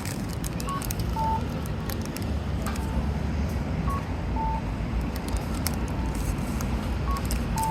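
City street ambience: a steady low traffic rumble with short electronic beeps at two slightly different pitches, coming every second or so, and a few light clicks.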